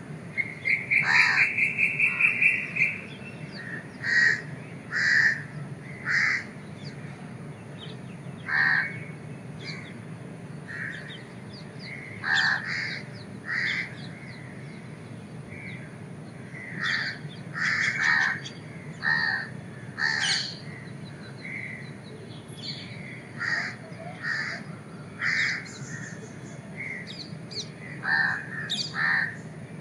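Crows cawing over and over, short separate calls at irregular gaps, with a fast run of repeated notes about a second in that is the loudest sound. A low steady hum runs underneath.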